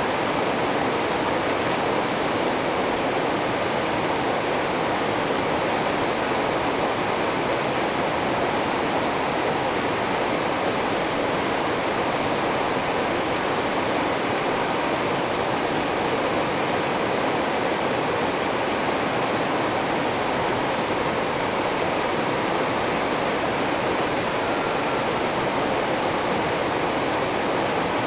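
Steady rushing of a river running through rapids and over stones, an even, unbroken water noise.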